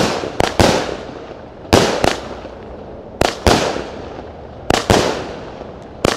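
A 36-shot, 20 mm consumer fireworks battery (Fonti Pirotecnica Super Bomb) firing at an unhurried pace, one shot about every second and a half. Each shot is a sharp launch report followed within a fraction of a second by the bang of the aerial break, trailing off in a crackling fizz.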